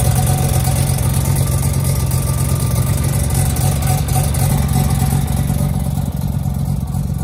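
Modified Mazda rotary engine running steadily at even revs, loud, easing off slightly near the end.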